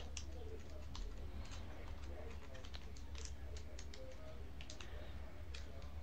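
Faint, scattered small clicks and ticks of fingers handling a tiny silver screw for the M.2 SSD adapter, over a low steady hum.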